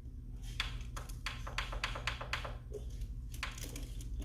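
About a dozen light, irregular clicks and taps, bunched in the middle, over a steady low hum.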